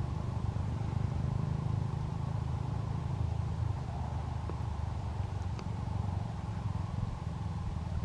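Steady low rumble, even throughout, with no clear bird call standing out.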